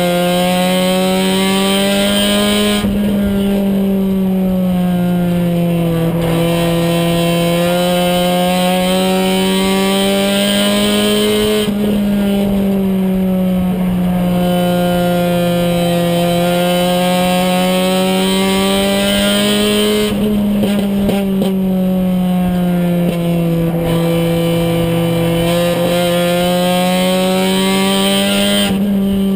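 Race car engine heard from inside the cockpit, running hard and steady at high revs. Its note swells and eases in a repeating cycle, with a sudden change about every nine seconds.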